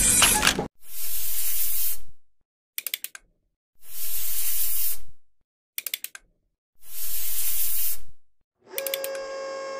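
Three hissing sprays, each about a second and a half long and evenly spaced, as fluffy coloured flock is blown out onto a square plate, with short quick bursts of clicks in the gaps. A brief mechanical clatter comes first, and near the end a steady hum with a few clicks starts.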